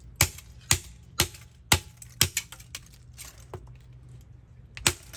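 A plastic 35mm film camera being struck over and over: five sharp, hard clacks about two a second, then a few lighter knocks and one more loud clack near the end.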